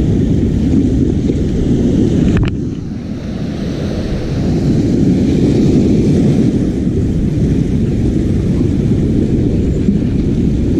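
Wind buffeting the microphone in a heavy, steady low rumble, with sea noise beneath it. A single sharp click comes about two and a half seconds in.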